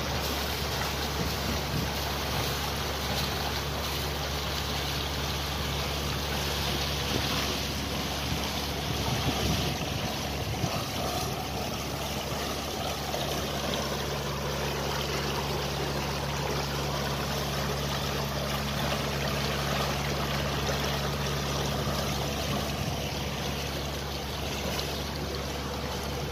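Water rushing and splashing along the hull of a sailing yacht under way, with a steady low hum underneath.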